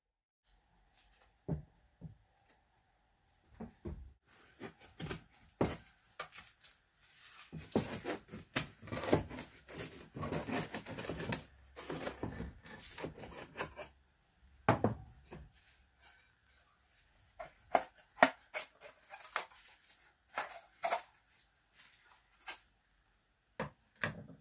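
Parts of an old pressure gauge being handled on a workbench: scattered knocks and clinks of cast iron and sheet steel. From about a third of the way in to past the middle there is a stretch of scraping and rubbing as the steel cover is worked by gloved hands against the gauge body.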